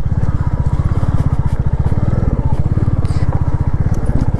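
Royal Enfield Classic 350's single-cylinder engine running at a steady pace, an even, rapid exhaust beat heard from the rider's seat.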